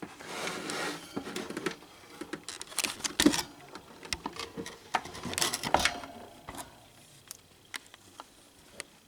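Handling noise from an old plastic table fan being turned over by hand: scraping and rustling, with many clicks and taps of plastic and a louder knock about three seconds in.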